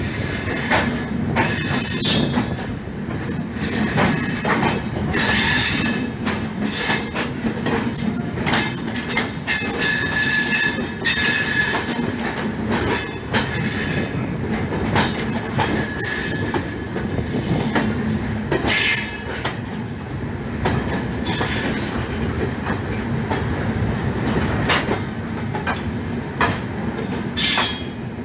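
Indian passenger trains running side by side on parallel tracks, heard from an open coach door: a steady rumble of wheels on the rails, with irregular clacks over rail joints and a thin wheel squeal that comes and goes.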